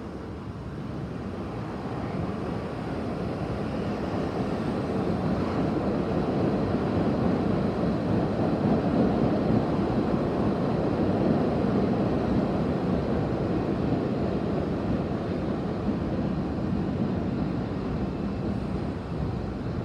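Low rumble of a vehicle passing out of sight, swelling over several seconds and then slowly fading.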